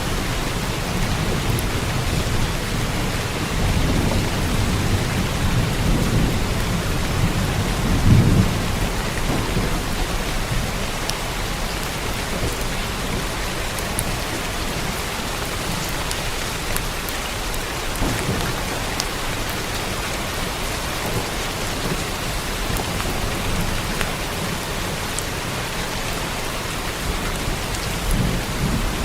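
Steady heavy rainfall with rolling thunder: low rumbles swell for several seconds in the first third, peaking about eight seconds in, and again briefly near the end, while scattered louder drops tick through the hiss.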